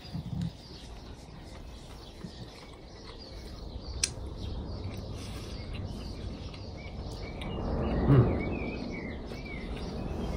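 Outdoor ambience with small birds chirping faintly, the chirps clustering about seven to nine seconds in. There is a single sharp click about four seconds in and a brief swell of noise about eight seconds in.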